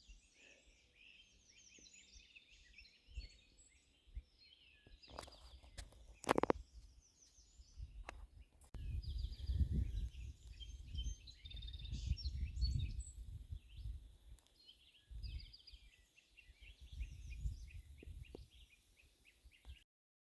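Songbirds chirping and singing, many short calls overlapping, with a low rumble on the microphone from about nine seconds in and a sharp knock about six seconds in. The sound cuts off abruptly just before the end.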